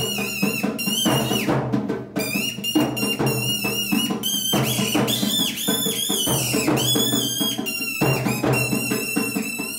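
Kathputli puppet-show music: a drum beats a steady rhythm while a shrill, warbling reed whistle squeaks in short phrases above it. This is the puppeteer's boli, the squeaky voice used for the marionettes.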